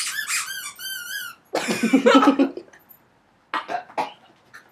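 A girl coughing and spluttering on a mouthful of ground cinnamon. First come a few high squeaky whimpers, then one big cough about a second and a half in, and a few short coughs near the end.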